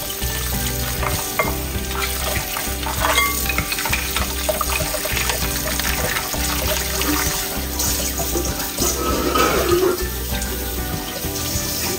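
Soapy sponge scrubbing and sloshing in a glass mixing bowl in a stainless steel sink. Near the end, tap water runs as the bowl is rinsed. Soft background music plays throughout.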